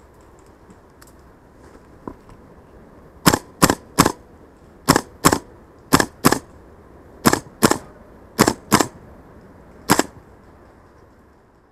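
Airsoft gun firing about a dozen single shots, sharp cracks mostly in quick pairs, starting about three seconds in and ending with one lone shot near the end.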